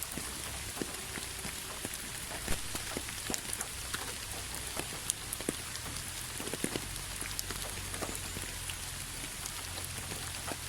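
Steady rain falling, with many separate drop hits scattered close by over the even hiss, and a faint low rumble underneath.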